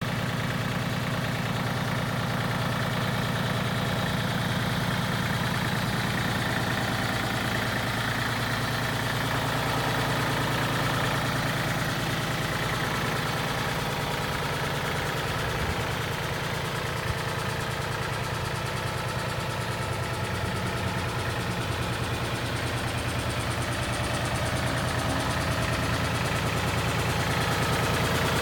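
Kubota L35 backhoe loader's diesel engine running steadily at low revs, getting a little louder near the end.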